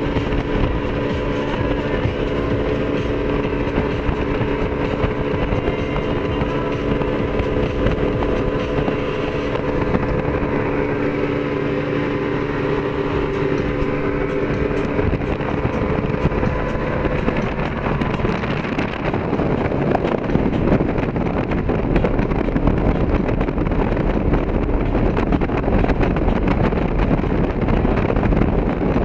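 A 22-foot Hydra-Sports boat running at speed: the outboard engine's steady hum over rushing water. After about two-thirds of the way through, the engine tone fades under a louder rush of wind on the microphone and water.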